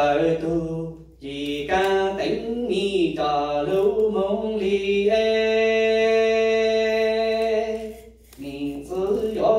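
A man singing a Hmong txiv xaiv funeral chant into a microphone, in slow drawn-out phrases. One long note is held for about three seconds in the middle, then there is a short pause before the next phrase begins.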